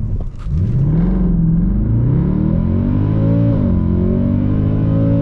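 Mercedes C63 AMG's naturally aspirated 6.3-litre V8 under hard acceleration, its pitch climbing as the revs build. The seven-speed AMG automatic upshifts about three and a half seconds in, dropping the revs, and the engine climbs again to another upshift near the end.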